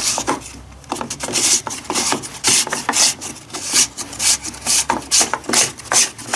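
Battery chainsaw's toolless chain-tensioning knob being twisted by hand, in a quick series of short rasping ratchet strokes, about two or three a second, as the chain is tightened.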